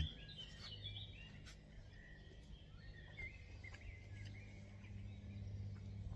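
Small birds chirping and singing faintly, over a low steady hum.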